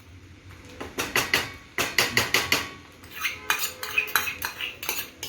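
A cooking utensil repeatedly clinking and scraping against an iron kadhai as fried rice is tossed and mixed, in quick clusters of strikes starting about a second in.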